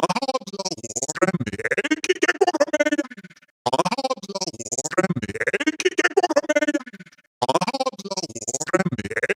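Synthesized robotic voices stuttering in rapid chopped repeats, in three phrases of about three and a half seconds, each starting suddenly after a short gap and trailing off.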